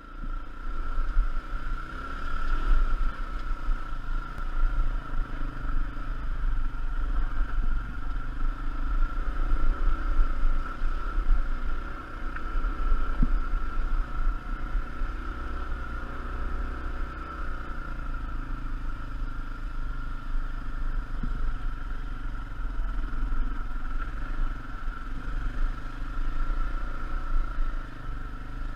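Dirt bike engine running as the bike picks its way along a rocky trail, the loudness rising and falling unevenly, with a steady high whine underneath.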